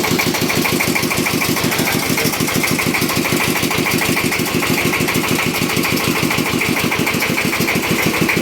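A well-drilling rig's single-cylinder dompeng (Dongfeng-type) diesel engine running steadily with an even, rapid chugging pulse, on a test run of the newly built rig.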